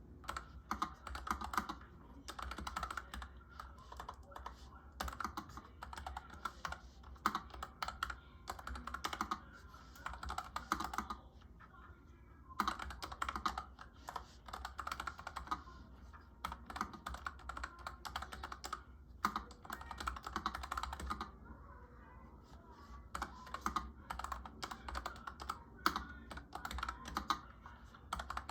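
Typing on a NuPhy Air 75 mechanical keyboard fitted with brown switches freshly lubed with Krytox GPL 205 Grade 0, giving fast runs of key clicks with a couple of brief pauses. This is a sound test of the keyboard after lubing.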